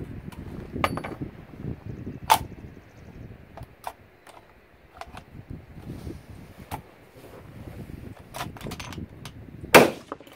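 Sharp metallic clicks and clacks from an AR-style pistol being worked and reloaded by hand after a suppressed shot, with one loud clack near the end and a strong one about two seconds in.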